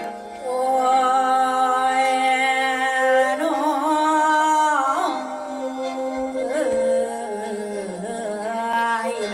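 Music: a song with long held, wavering sung notes over a sustained low drone.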